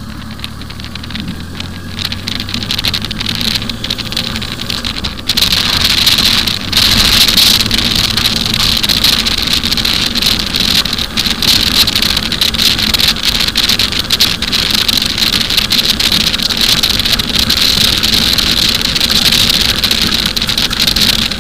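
Wind rushing over the microphone of a moving motorcycle, with the bike's engine running steadily underneath. The wind noise jumps suddenly louder about five seconds in and stays loud.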